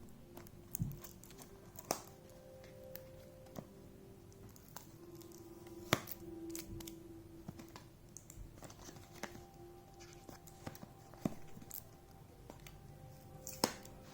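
Gift packaging being handled and opened by hand: scattered clicks, taps and tearing, with sharp snaps about 2, 6 and 13.5 seconds in, over faint background music.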